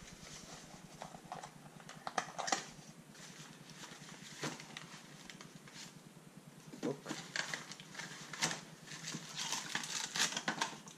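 Cardboard packaging being handled: irregular taps and knocks of a cardboard box being opened, with paper rustling, growing busier about nine seconds in.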